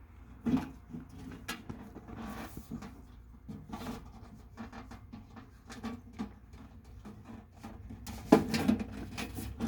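Scattered light clicks, scrapes and rustles of hands working with straps around a metal mailbox, with a louder knock and clatter about eight seconds in.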